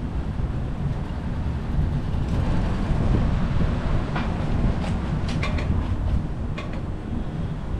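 Steady low rumble of wind and road noise on the microphone while cycling. A few sharp clicks and rattles come between about four and seven seconds in.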